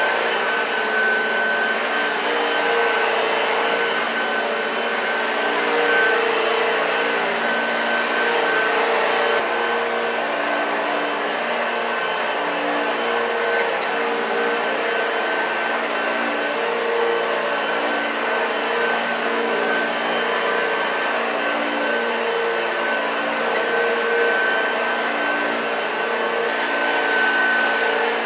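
1986 Hoover Junior U1206 upright vacuum cleaner running steadily while vacuuming, with a steady high whine.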